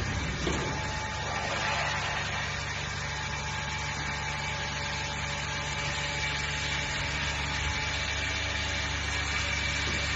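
Vacuum membrane press machine running: a steady low mechanical hum with a few faint constant whining tones above it.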